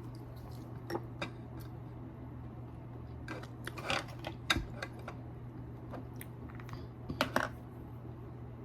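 Scattered small clicks and taps of makeup items being handled, with a few grouped near the middle and again near the end, over a steady low hum.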